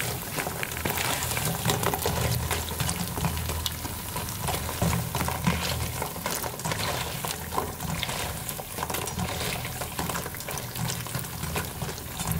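Awama dough balls deep-frying in hot oil in their second fry, a dense, steady crackle and sizzle, the crackling that makes them crunchy. They are stirred and turned with a slotted spoon in the small steel pan.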